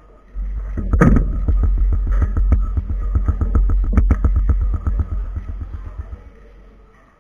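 A 4x4 speedcube being turned fast by hand: a quick run of plastic clicks and clacks, about eight a second, over a low rumble. It starts about half a second in and fades out about a second before the end.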